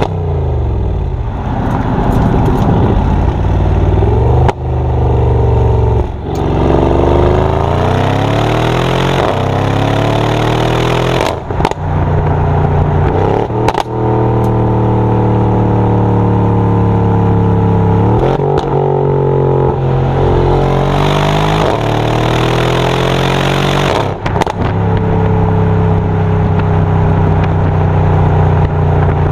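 Mercedes-AMG GLE 63 S Coupe's twin-turbo V8 exhaust, its engine speed rising and falling several times with steadier stretches between, and sharp cracks here and there.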